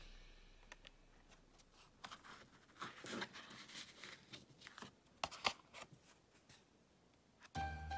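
Faint rustles and sharp little clicks of a stiff paper card being handled and pierced with an embroidery needle, with thread drawn through, as holes are punched ahead for French knots. The sharpest clicks come about three seconds and five seconds in.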